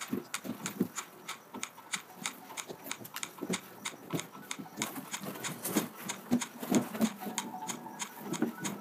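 Rapid, irregular clicking and clacking of a roller stick worked during shadow boxing, about four or five knocks a second, getting louder in the second half.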